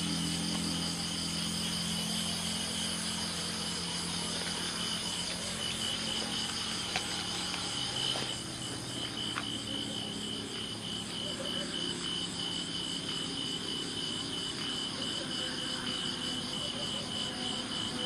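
Night insects, crickets, chirping in a steady chorus of rapid, even pulses.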